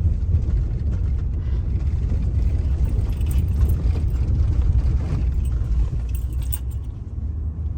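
Steady low rumble of a car driving, heard from inside the cabin, with light clicking and rattling from about three to six and a half seconds in. The rumble eases a little near the end.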